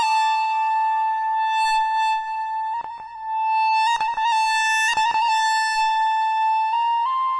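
Moog Subsequent 25 analog synthesizer playing a bright single-voice lead. It holds one high note with a few quick re-struck notes around the middle, then steps up slightly in pitch near the end.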